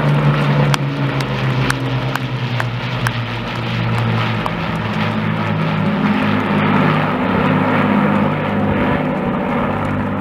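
Two Avro Lancaster bombers flying overhead in formation, their four-engined Rolls-Royce Merlin piston drone steady and loud as they pass and draw away. A few sharp clicks come in the first three seconds.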